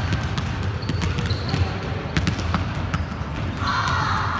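Basketballs being dribbled on a hardwood gym floor: irregular bouncing thuds, several to a second.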